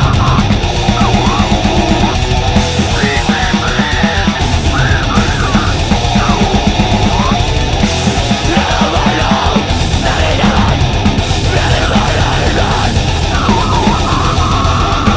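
Heavy metal band recording: dense distorted guitars over a fast, steady drum pulse, with harsh yelled vocals sliding in and out.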